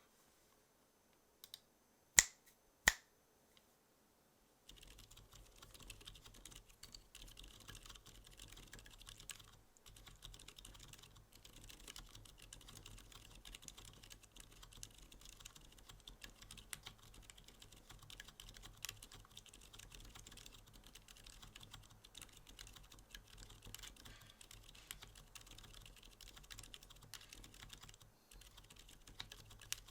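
Typing on a Cannonkeys Practice65 mechanical keyboard with lubed Gazzew U4 Boba silent tactile switches and PBT keycaps. There are a few sharp clicks in the first three seconds, then steady, fast, muted keystrokes from about five seconds in, with brief pauses.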